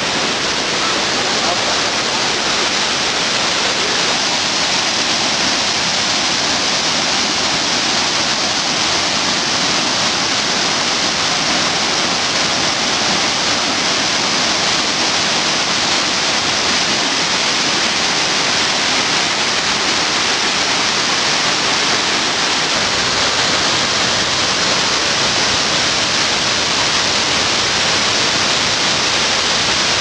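Shiraito Falls, a wide curtain of many thin waterfalls pouring down a cliff into the stream below, making a steady, loud rush of falling water.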